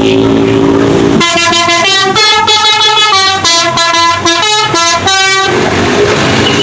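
Indonesian 'telolet' musical bus horn: a steady low note, then from about a second in a quick tune of changing horn notes lasting about four seconds.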